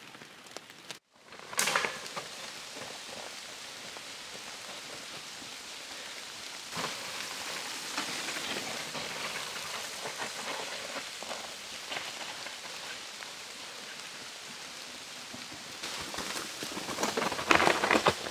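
Mountain bikes passing close on a wet, muddy forest trail: tyres rolling through mud and wet leaf litter, loudest briefly near the start and again near the end, over a steady hiss.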